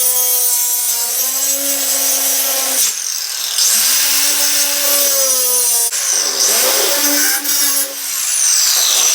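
Angle grinder cutting through drywall in three runs: a motor whine that sags under load, over a gritty cutting hiss. It stops about three seconds in and again near six seconds, spinning back up each time.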